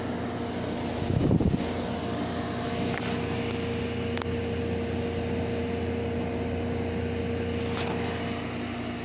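General Electric room air conditioner running: a steady hum from the compressor over the rush of its fan, which the owner believes has a rotary compressor. A brief low rumble about a second in, and a few faint clicks.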